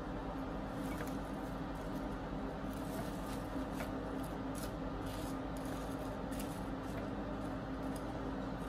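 Wooden chopsticks tapping and turning crisp, twice-fried potato fries on paper towel: a scatter of light, dry clicks over a steady low hum.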